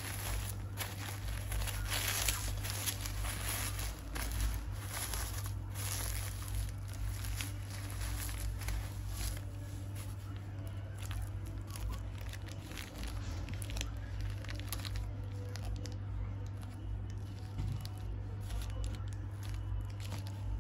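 Plastic bubble wrap being torn open and crinkled by hands, dense crackling rustle for the first half, then lighter rustling and clicks of plastic-fronted lure packets being handled. A steady low hum runs underneath.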